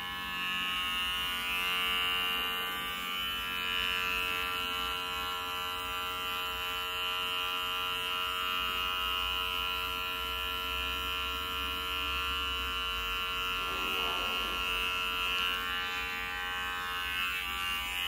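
Cordless electric hair clipper buzzing steadily as it is run over the scalp, shaving the head down to stubble.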